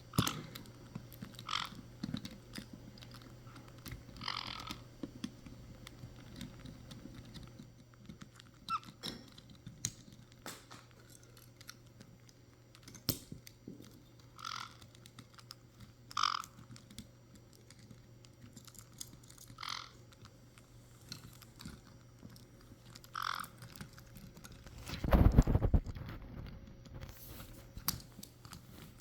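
Caique parrots pecking and chewing at an object: a steady run of sharp clicks and crunches, with about six short squeaks spread through. About 25 s in there is one loud rustling thump.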